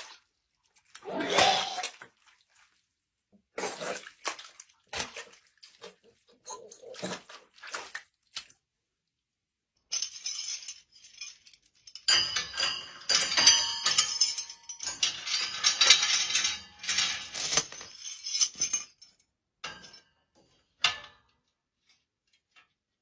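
Short separate knocks and rustles, then about eight seconds of dense clattering and clinking, then a couple of single clicks.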